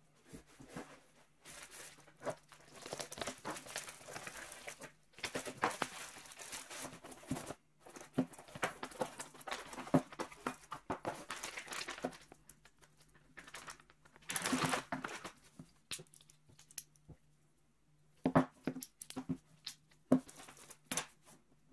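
Plastic packaging being torn open and crinkled in long stretches of rustling, with one louder burst of rustling past the middle. Near the end come a few sharp clicks and knocks as the bipod is handled.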